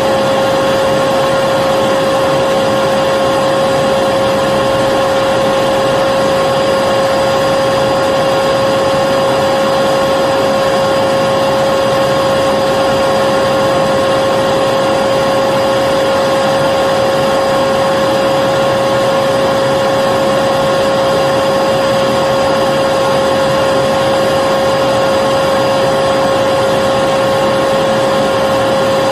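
Vacuum cleaner running continuously at a constant pitch: an even rushing hiss of air with a steady motor whine on top.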